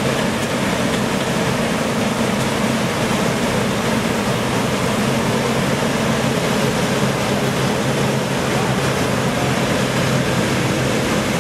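Combine harvesters running steadily at harvest: a continuous wash of engine and machinery noise with a low, even hum through it.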